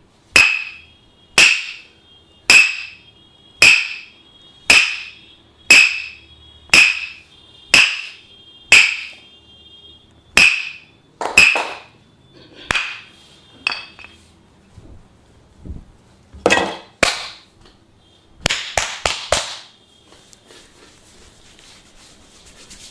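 Tok Sen massage: a wooden mallet knocking on a wooden wedge held against the body, each strike sharp with a short ringing tone. The knocks come steadily about once a second, then more unevenly and with some doubled strikes. A quick flurry of knocks comes near the end before they stop.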